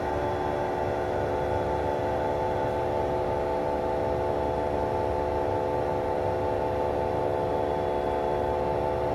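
Ormamacchine Duplex 40/13 thermoforming press running with a sheet drawn down over a form: a steady machine hum with several held tones over a low rumble.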